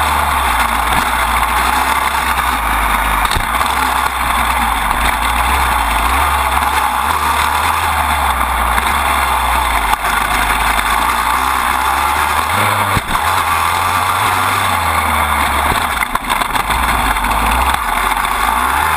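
Dirt bike engine running steadily under load, recorded up close beside the drive chain, with a few brief knocks as the bike rides the track.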